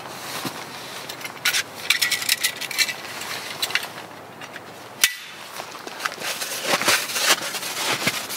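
Trekking poles being handled, giving light metal clinks and clicks, with one sharp click about five seconds in. Clothing rustles and steps crunch in snow near the end.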